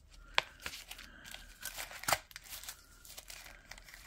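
Crinkling and tearing of a small packaging packet being handled and opened by hand, with two sharp crackles about half a second and two seconds in.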